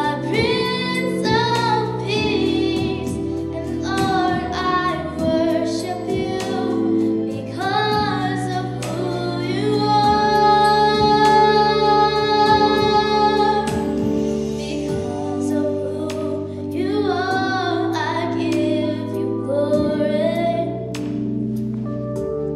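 A young girl singing a slow solo song into a microphone over a steady, sustained instrumental accompaniment, holding one long note about halfway through.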